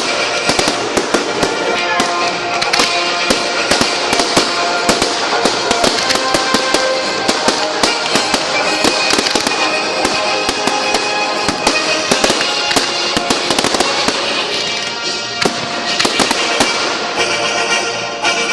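Fireworks display: a dense, continuous run of crackles and bangs from bursting shells, over music playing.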